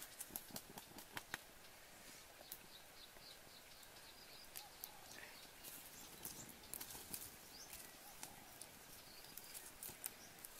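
Small wood fire crackling faintly, with a cluster of sharp pops and clicks in the first second and a half and a few more later, as a stick pokes at the burning embers.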